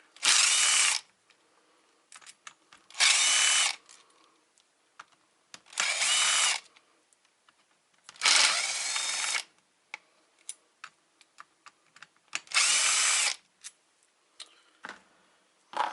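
Small electric impact driver running in five short bursts of about a second each as it backs out tiny Torx screws from a viscous fan clutch housing, with light clicks of the tool and screws being handled between the bursts.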